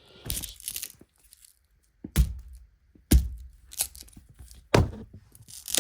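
A metal tool forced against the inside of an iPhone 4: a short scraping crackle, then four or five sharp knocks and cracks about a second apart, as the phone's parts are pried and struck instead of unscrewed.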